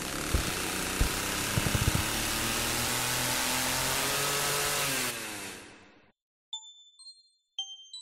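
Engine noise from machinery, running steadily with a few knocks near the start and fading out about five to six seconds in. A few high, bell-like music notes follow.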